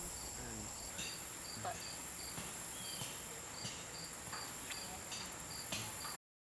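Crickets chirping, a short high chirp repeating about two to three times a second over a steady high insect trill, with a few faint clicks. The sound cuts off abruptly near the end.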